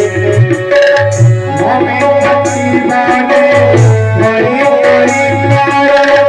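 Loud instrumental music of hand-drum strokes over a heavy, pulsing bass beat, with a held melody line above.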